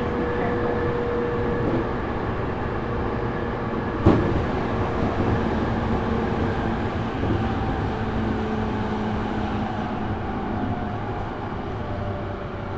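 Running sound inside a JR East E231-500 series motor car (MoHa E231-514): wheel and rail rumble with steady whining tones from the traction motors and inverter, the car's unusual altered motor sound, easing slightly in pitch and loudness later on. A single sharp knock about four seconds in.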